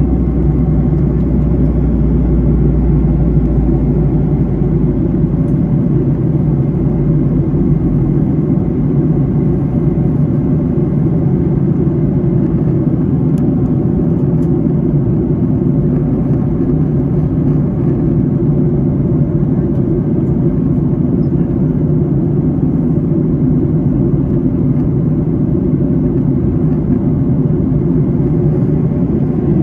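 Steady cabin roar of a Boeing 737-800 in flight, the sound of its CFM56-7B turbofan engines and the airflow heard inside the passenger cabin. A deeper rumble underneath fades away over the first several seconds.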